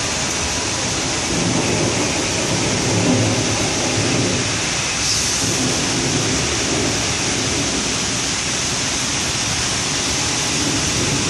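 Steady rain with a low rolling thunder rumble that builds about a second in, swells around three seconds and dies away by about seven seconds.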